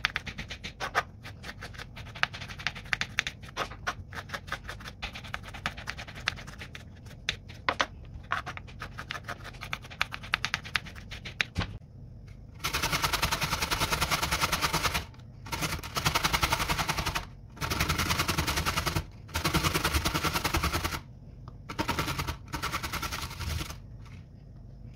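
Kitchen knife chopping cucumber on a wooden cutting board in fast, even chops for the first half. Then a raw beetroot is grated on a stainless-steel box grater: about six long, loud scraping strokes with short pauses between them.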